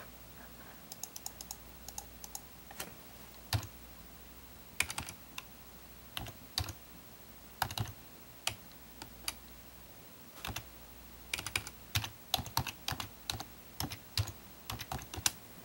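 Computer keyboard being typed on: single keystrokes and short quick runs of them, irregular, with pauses of up to a second or so between.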